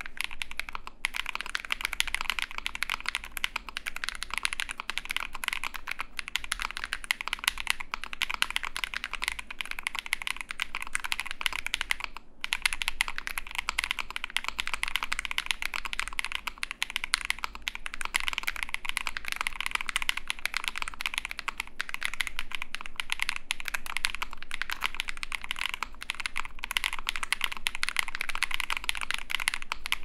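Steady fast typing on a mechanical keyboard built with Bolsa Supply Techno Violet linear switches (full nylon housings, long-pole stems) in an ai03 Vega with a polycarbonate plate and GMK 8008 keycaps. It is a dense stream of keystrokes, fairly loud and very deep, with a hard-hitting bottom-out, and there is a brief pause about twelve seconds in.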